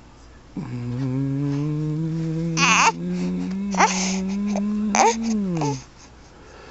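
An adult man's voice holding one long, slowly rising wordless hum or drawn-out vowel for about five seconds, gliding down in pitch as it ends. Three short sharp mouth noises cut across it near the middle and end.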